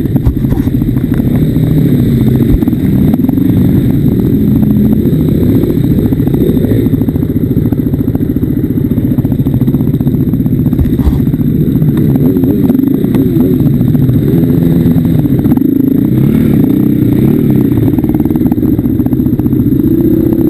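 KTM off-road motorcycle's engine running under load, revving up and down with the throttle so its pitch keeps rising and falling.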